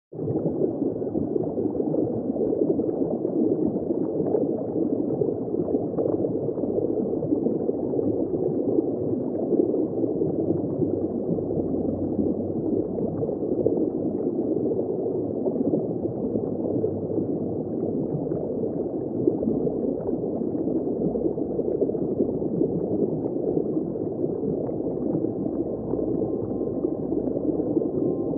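Underwater ambience: a steady, muffled rush of moving water with a fine crackle through it.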